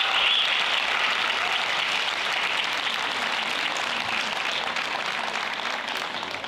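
Audience applauding, slowly dying away.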